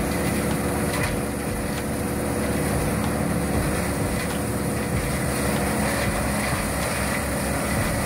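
Tow-behind Bandit brush chipper running steadily while leafy branches are fed into it and chipped.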